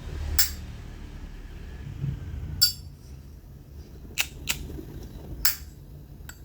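1969 Zippo lighter's metal lid being worked by hand: six sharp metallic clicks, spaced unevenly, as the lid is flipped open and snapped shut. The lid sits slightly open and is being adjusted.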